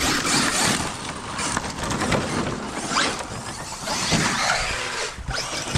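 Electric RC trucks driving on loose dirt: brushless motors whining and rising twice as they are throttled up, over the hiss of tyres scrabbling in the dirt.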